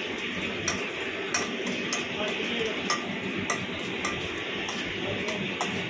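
Even, regular ticking, about three ticks every two seconds, over a constant hum.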